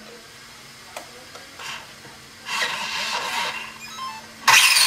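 An RC buggy's 3660 brushless motor is run in short throttle bursts, whirring through the pinion and spur gears, with the loudest burst near the end. A steady low hum runs underneath. The gear mesh, which the owner judges a little tight, is being tested.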